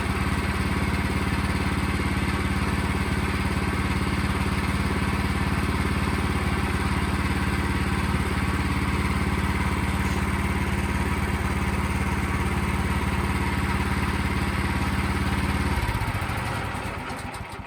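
Sawmill engine running steadily, then shut off near the end, its pitch dropping as it winds down to a stop.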